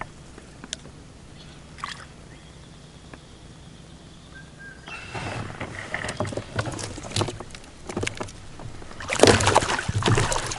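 Water splashing and sloshing at the surface right beside a plastic fishing kayak, with knocks against the hull: a pike thrashing at the surface. The splashing starts about halfway through and is loudest near the end.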